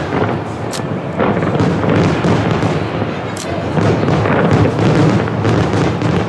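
Large fireworks display: a dense, continuous barrage of aerial shell bursts and crackling, with sharp cracks standing out about a second in and again past the three-second mark.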